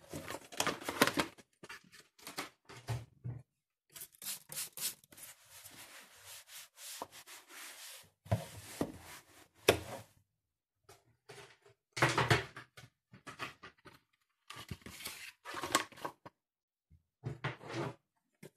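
Rustling and rubbing of things being handled and moved about while tidying, in irregular short bursts with a few sharper knocks between them.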